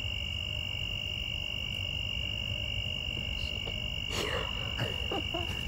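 Steady night chorus of insects, a constant high trill, over a low background rumble.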